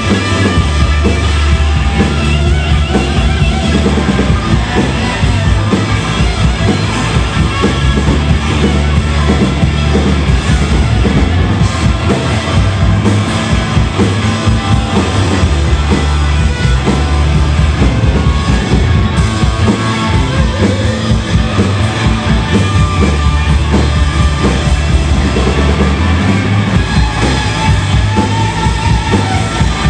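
Live rock band playing an instrumental passage with no singing: loud, distorted electric guitars over a steady, busy drum kit beat and sustained low notes.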